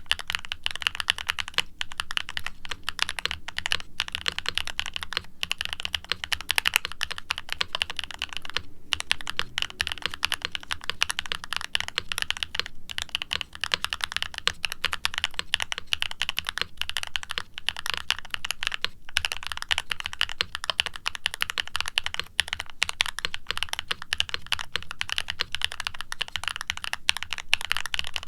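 Steady, fast typing on a mechanical keyboard: an E-coated aluminum Novelkeys NK87 with a carbon fiber plate, HMX x Siliworks Nap linear switches and double-shot ABS keycaps, heavily dampened, giving a soft clack. The keystrokes run continuously with a couple of brief pauses.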